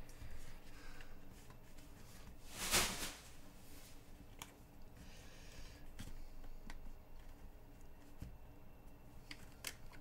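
Plastic cards being slid by hand into the card slots of a leather wallet: faint rubbing and light clicks of card on leather. A short, louder rush of noise comes about three seconds in.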